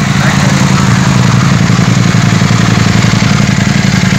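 Ducati Streetfighter V4S's V4 engine idling steadily.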